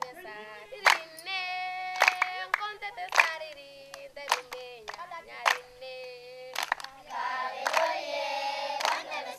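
A single voice singing long held notes, with a hand clap about once a second; about seven seconds in, a group of children's voices joins in, singing together.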